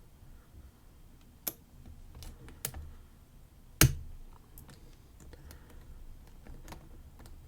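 Small, irregular clicks and light scraping of a lock pick and tension wrench working the pin stack of a brass Lockwood 334B45 padlock, with one sharper click a little under four seconds in. The pins give several clicks each as they set, which the picker suspects comes from tapered key pins and spool pins.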